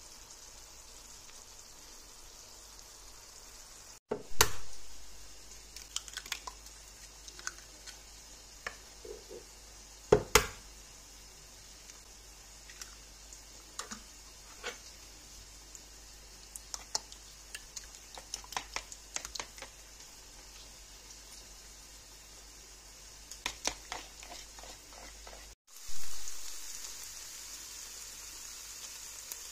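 Tomatoes and green peppers frying gently in a pan with a faint steady sizzle. Then two sharp cracks a few seconds apart as two eggs are broken into a bowl, followed by lighter scattered clicks. Near the end, a loud burst of sizzling as beaten egg is poured into the hot pan, settling into a steady sizzle.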